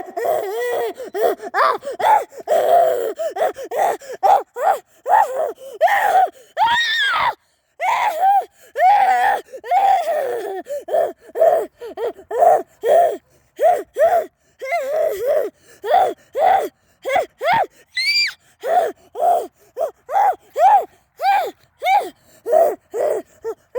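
A high-pitched voice making short, squeaky, gasping cries over and over, about two or three a second, each bending up and down in pitch. A few longer squeals rise much higher.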